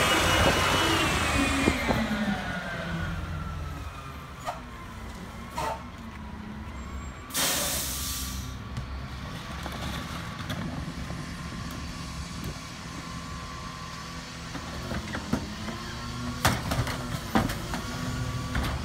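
CNG rear-load garbage truck (MRU/Ez-Pack Goliath): its engine note falls as it slows past, then the air brakes release a sharp hiss about seven seconds in. The engine then runs with a steady whine while carts are tipped into the rear hopper, with several loud knocks of carts against the hopper near the end.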